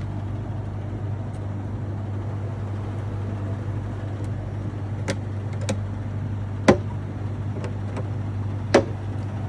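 2022 Daikin Fit air conditioner running with a steady low hum, working normally after a control board replacement. A few sharp clicks sound over it, about halfway through, at about two-thirds (the loudest) and near the end.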